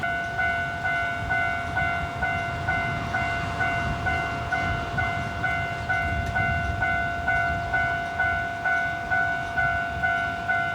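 Japanese level-crossing warning bell ringing steadily, about two strikes a second, as a two-tone electronic clang. Under it runs the low rumble of a train on the line.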